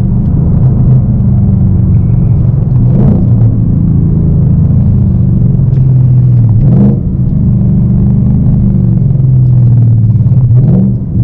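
Ford Mustang GT's 5.0 V8 through an MBRP Race catback with the mufflers deleted, droning inside the cabin while cruising on the highway near 2000 rpm, the rev range where the drone is worst. A steady deep hum whose pitch dips and recovers a few times.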